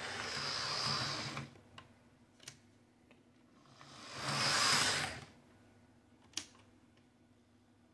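HO-scale Model Power FA diesel model locomotive, Roco-built, running on track after cleaning and oiling: its small electric motor and gears whir, swelling loud twice about four seconds apart. A few sharp clicks come between the swells.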